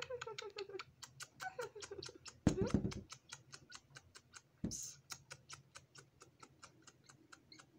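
Rapid, regular ticking at about six clicks a second. It is joined in the first three seconds by a few short falling voice-like sounds and a low thump.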